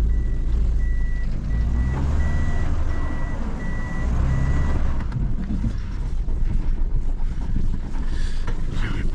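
A car's reversing beeper repeats a single high beep about twice a second while the car is backed into a parking spot, and stops about five seconds in. The car's engine is running underneath.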